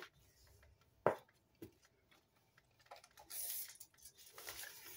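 Faint handling sounds of a tape measure: a single click about a second in, then two short rasping rustles near the end as its blade is pulled out.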